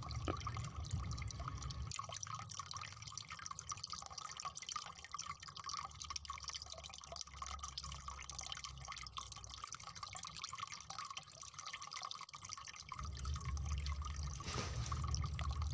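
Faint, irregular wet clicking and dripping from soaked, swollen grow-in-water toy animals being handled in the fingers.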